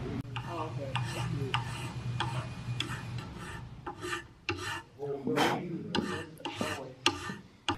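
Hand file rasping across a muzzleloading longrifle barrel in repeated short strokes, about two a second, with one longer, louder stroke a little past the middle.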